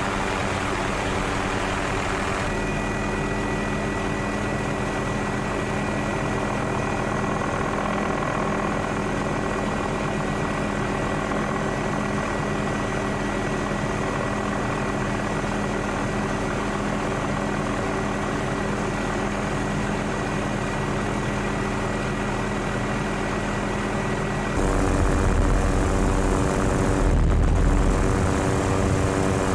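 Steady engine drone of the aircraft carrying the camera, heard from on board: a constant hum with a thin high whine. It changes abruptly about 2.5 s in, and near the end switches to a louder, deeper drone.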